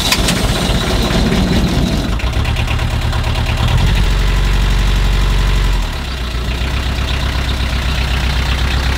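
Narrowboat's Beta Marine marine diesel engine running just after starting, on its first run after a full service (oil, fuel, air and oil filters changed). It gets louder about four seconds in as the throttle is opened briefly, then drops back to a steady idle near six seconds.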